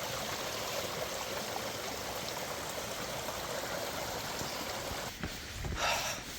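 Steady rush of a flowing mountain stream, with a brief scuffing sound near the end.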